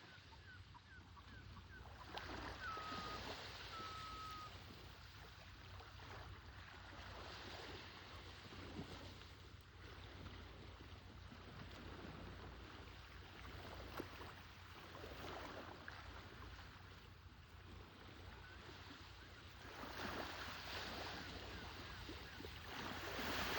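Waves washing on the shore, swelling and falling back every few seconds, under a steady low rumble. A bird gives a few short whistled calls in the first few seconds.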